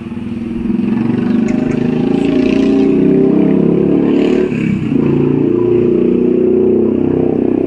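A motor vehicle engine running close by and loud, its pitch wavering up and down, with a short dip about halfway through.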